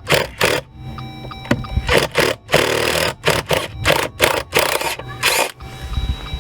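A socket ratchet with a deep 13 mm socket working a bolt loose: about ten irregular scraping, clicking bursts, one of them longer about halfway through.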